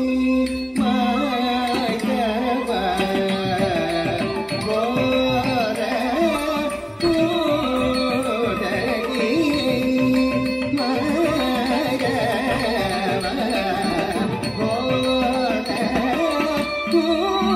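Carnatic classical music: a singer's melodic lines, some held long, over steady hand-drum beats.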